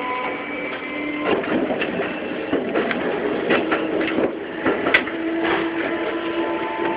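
Keikyu 2100-series train's Siemens GTO VVVF inverter and traction motors giving steady whining tones while under way, heard from the cab. Through the middle there is a run of sharp clicks and knocks from the wheels on the track.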